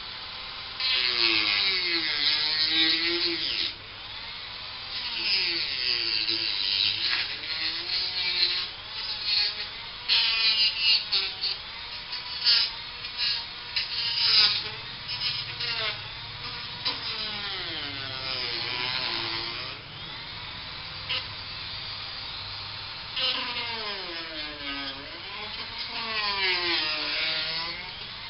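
Small handheld electric power tool running. Its motor pitch keeps sagging and recovering as it bears on the work, with a scratchy grinding noise over it, and it eases off briefly a few times.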